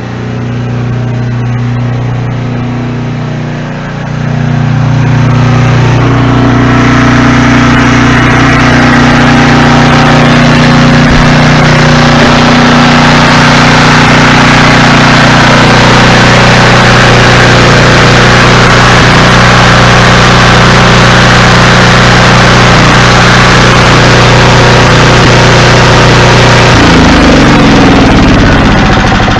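Briggs & Stratton portable generator engine running steadily, its freshly cleaned carburetor letting it run smoothly; it gets louder about five seconds in, and near the end its speed drops and its pitch falls.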